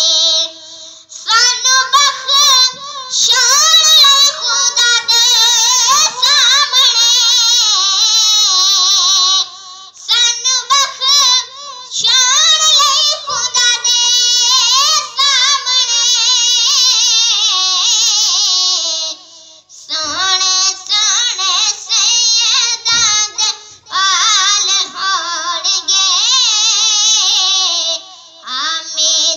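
A boy singing a Punjabi naat, a devotional song in praise of the Prophet, unaccompanied into a handheld microphone. His voice runs in long, wavering, ornamented lines with brief breaks between phrases.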